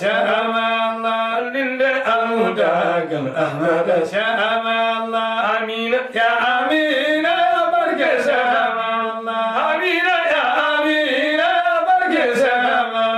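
Men's voices chanting a qasida, an Islamic devotional poem, in long held melodic lines that glide up and down.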